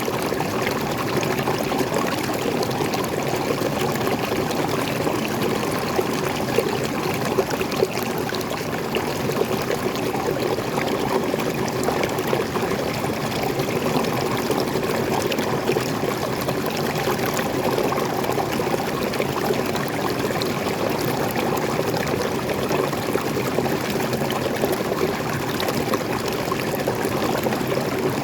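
Water flowing steadily over a small waterfall and along a stream, a constant splashing rush with no change.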